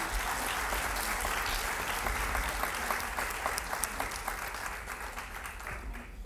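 Audience applauding, dying down toward the end.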